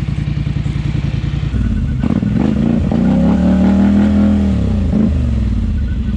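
ATV engine idling with an even pulse, then revved up about two seconds in, held high briefly and dropped back to idle about five seconds in.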